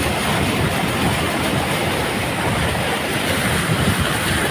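A vehicle driving through deep floodwater: a steady rushing of water sprayed and pushed aside by its wheels, over the low rumble of the vehicle.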